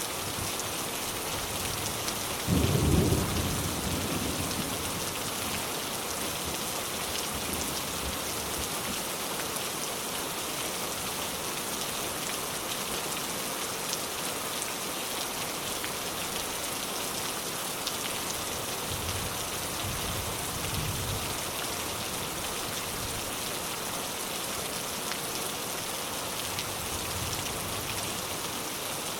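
Steady rain falling. A loud low clap of thunder comes near the start and rumbles away over a couple of seconds, and a fainter roll of thunder follows about twenty seconds in.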